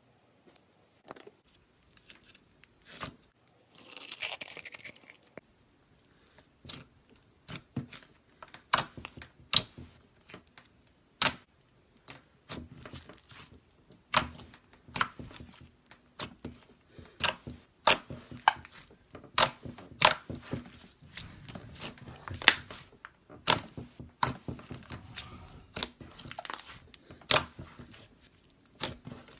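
Slime being squeezed and poked by hand, giving a run of sharp, irregular clicks and pops with soft crackling between them. A short rustling crinkle comes about four seconds in.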